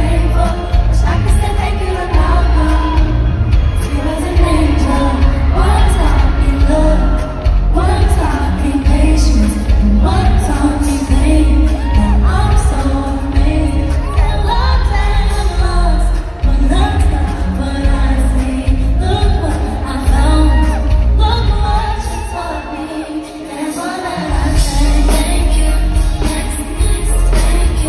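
Live pop concert music heard from the audience: a lead vocal singing over a heavy, pounding bass beat through the arena PA. The bass drops out for a moment near the end, then comes back in.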